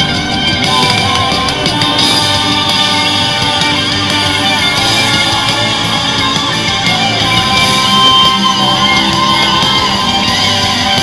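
Live rock band playing loudly through a PA: electric guitars and a drum kit.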